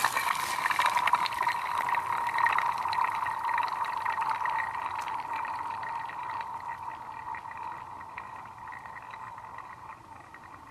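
A thrown chunk of ice sliding and skittering across a frozen pond's ice sheet: a ringing, whirring tone full of fast ticks that fades steadily as the chunk travels far out to the other side.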